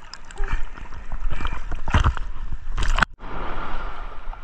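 Seawater sloshing and splashing against a camera held at the surface, with irregular noisy surges from small waves. The sound cuts out sharply for a moment about three seconds in.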